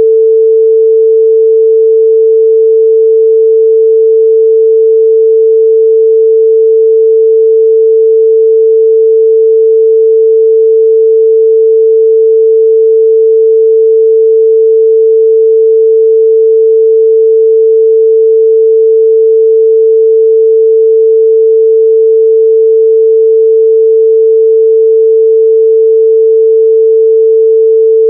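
A steady, loud 445 Hz pure sine-wave test tone, held at one pitch without a break.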